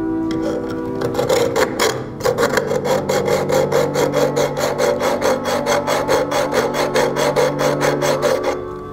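Hand hacksaw cutting back and forth through an alarm clock's metal case held in a small vise: quick, even rasping strokes, with a brief pause about two seconds in and a stop near the end.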